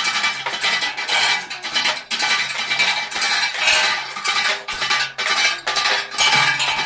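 Chain of a chain-block hoist rattling and clinking steadily, with brief pauses, as a submersible pump and its column pipe are lowered down a borewell.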